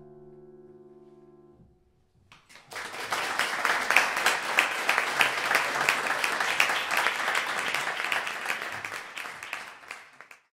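The last chord on a grand piano dies away. About two seconds in, the audience breaks into applause, which cuts off abruptly near the end.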